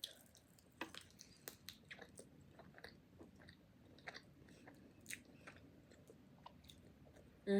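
Close-miked chewing of tandoori chicken wings: a quiet, steady run of small wet clicks and ticks from the mouth.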